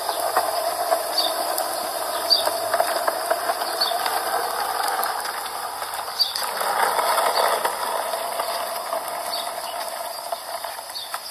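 Steady mechanical rattling and whirring with faint high ticks scattered through it; the sound changes about six seconds in.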